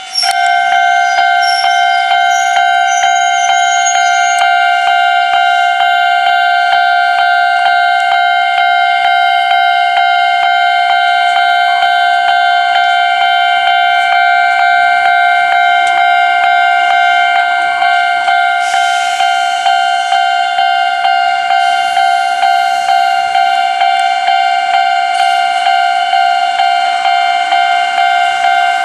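Railway level-crossing warning bell ringing in a fast, steady, ding-ding rhythm at one fixed pitch. It starts at the very beginning. About two-thirds of the way in, a rushing hiss joins it and comes and goes.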